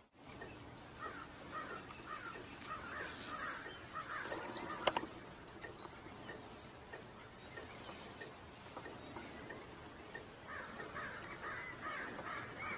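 Repeated harsh bird calls in two bouts, one in the first few seconds and another near the end, with a single sharp click about five seconds in.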